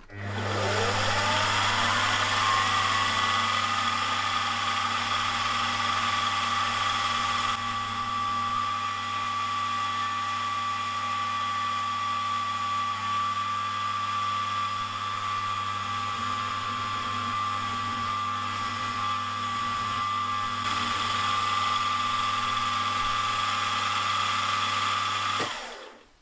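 Milling machine spindle spinning up with a rising whine, then running steadily with a low motor hum beneath while a drill bores through a stack of four glued mild-steel bars, and spinning down near the end.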